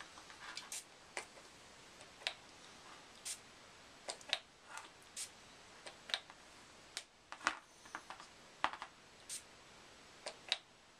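Scattered light clicks and taps, about one or two a second at irregular intervals, from handling a disassembled pistol slide and a small oil bottle on a cardboard-covered table while oiling the slide.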